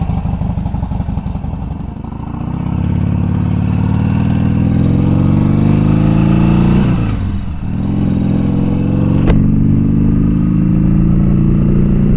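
Harley-Davidson Sportster 1200 V-twin engine pulling away and accelerating, its pitch climbing, dropping briefly about seven seconds in at a gear change, then climbing again. A sharp click about nine seconds in.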